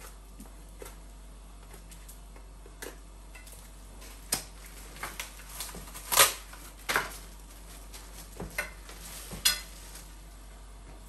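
Scattered sharp clicks and clinks from the metal legs of a baby jumper stand being handled and unwrapped from their cardboard and plastic packaging. The loudest clinks fall between about four and seven seconds in, with a few more near nine and a half seconds.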